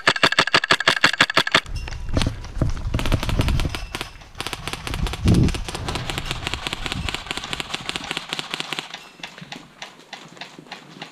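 Airsoft guns firing on full auto: a loud, rapid burst of evenly spaced cracks for about two seconds, then a longer, fainter stream of rapid shots that tails off near the end.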